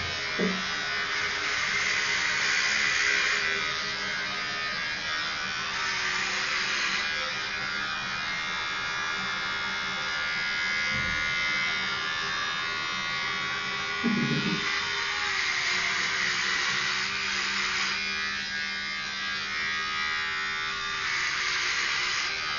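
Electric hair clippers buzzing steadily through a haircut, the buzz growing stronger and weaker as they move. A brief voice about fourteen seconds in.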